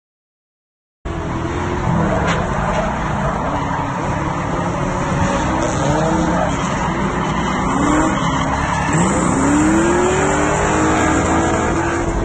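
Nissan 240SX drift car's KA24DE four-cylinder engine revving hard, its pitch climbing and dropping over and over, with tyres squealing as the car slides. It cuts in abruptly about a second in.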